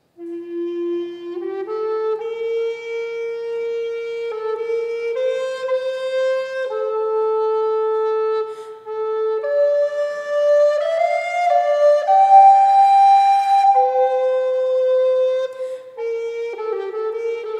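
Solo flute playing a slow melody of held notes, starting out of silence, climbing higher in the middle and falling back near the end.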